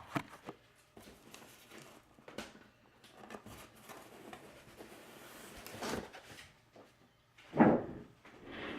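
A cardboard model-kit box and its contents being handled: scattered soft knocks, taps and rustles, with one louder scrape about seven and a half seconds in.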